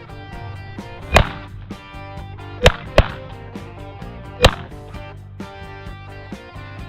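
Four shotgun shots from a goose hunt, the second and third about a third of a second apart, over background music.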